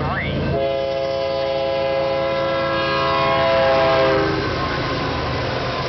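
Lead diesel locomotive of a BNSF freight train, a GE ES44AC, sounding its multi-chime air horn in one long blast for the grade crossing, growing louder as it closes in and cutting off about four seconds in as the locomotives reach the crossing. After that the locomotives' engines and the train's wheels rumble past.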